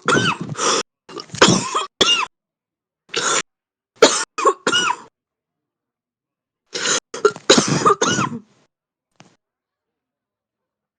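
Heavy smoker's deep, chesty coughing in fits: a run of short, harsh coughs through the first five seconds, then after a short pause another fit of coughs about seven to eight and a half seconds in.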